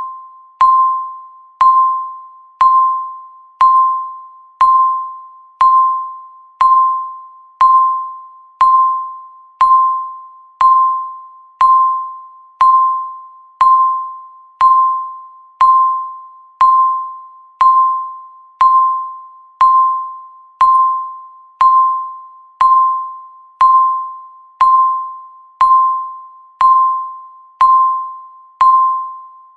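Countdown timer beep: a single electronic tone sounding once a second, each beep starting sharply and fading away, all at the same pitch.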